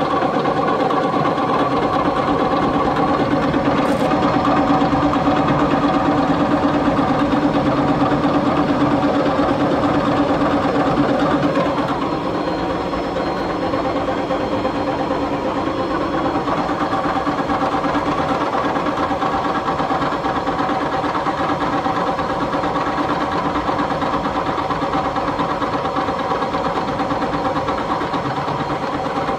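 A motor whose shaft bearings are bad, running steadily with a dense mechanical running noise over several steady tones. It gets slightly quieter about twelve seconds in.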